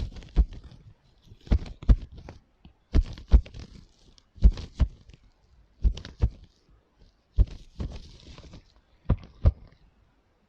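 ASMR knocking on a prop: dull, thudding knocks in pairs, about one pair every second and a half, with light scratching between some of them.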